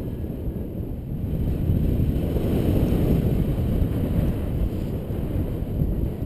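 Wind rushing over the microphone of a paraglider pilot's camera in flight: a steady low rumble that swells slightly a couple of seconds in.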